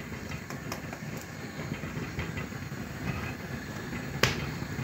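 A steady low rumble of kitchen background noise, with faint clicks of a metal teaspoon against a plastic seasoning shaker and one sharper click about four seconds in.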